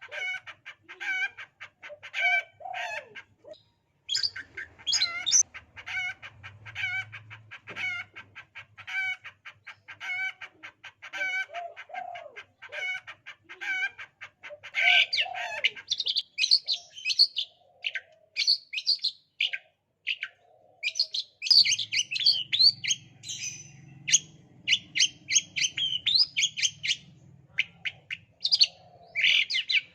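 Long-tailed shrike (cendet) mimicking a hen's clucking in quick rhythmic runs, then about halfway through switching to rapid high chirps and squeaky calls.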